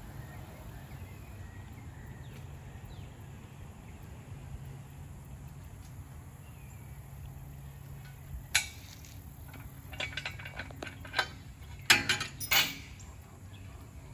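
Steel-on-steel clanks and knocks as a tractor's three-point hitch boom pole is worked free and taken off: one sharp clank past the middle, then a run of ringing clanks near the end.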